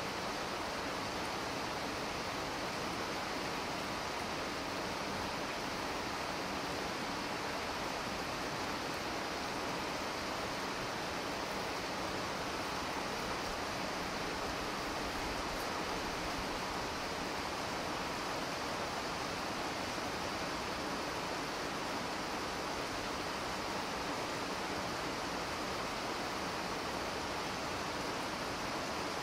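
Steady, unchanging rushing of running water.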